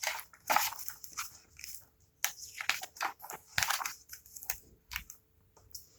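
A picture book being handled: its cover and pages rustling and crinkling in a run of irregular crackles as it is opened to the first page.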